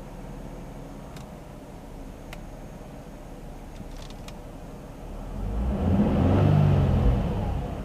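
Nissan Fairlady Z (Z33) V6 engine idling, then blipped once about five seconds in: the revs climb, hold briefly and fall back toward idle over roughly two and a half seconds.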